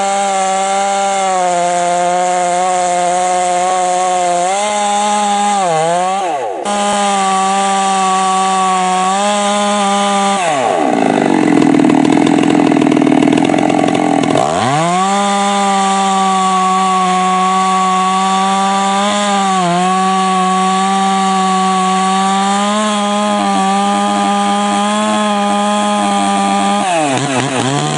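Stihl 064 two-stroke chainsaw, fitted with a Mahle 066 top end, running at high revs. Its pitch dips briefly once, then drops hard for about four seconds in the middle as the saw bogs under the load of a cut, before climbing back to high revs. The revs fall off near the end.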